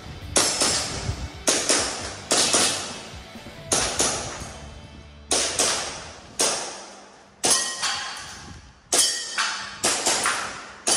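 Airsoft gas pistol shots fired in quick pairs, about a dozen and a half in all, each with a short ringing tail as they echo or strike targets.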